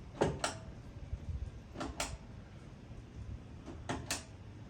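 Dune buggy headlight switch clicking as the lights are tested between high and low beams: three pairs of sharp clicks, roughly two seconds apart.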